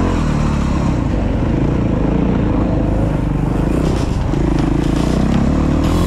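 Dirt bike engine running continuously while riding a rough bush trail.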